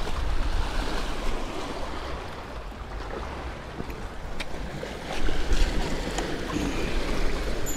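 Small waves washing against granite jetty rocks, with wind rumbling on the microphone. The sound is a steady rushing, swelling louder about five seconds in, with a few faint knocks and a short high chime at the very end.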